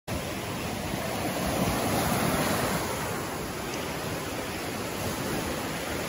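Small surf breaking and washing up on a sandy beach: a steady rush of waves that swells a little about two seconds in.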